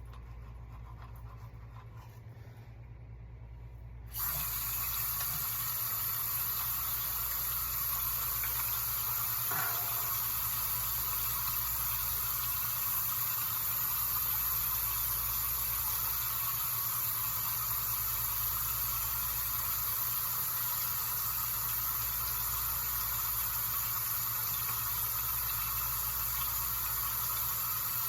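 A steady rushing hiss starts suddenly about four seconds in and runs on without a break.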